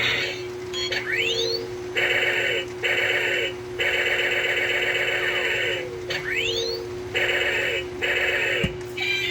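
Battery-powered toy gear gun playing its electronic sound effects: a sweeping laser zap followed by several bursts of rapid-fire buzzing, the sequence heard twice, over a steady hum. A short knock near the end.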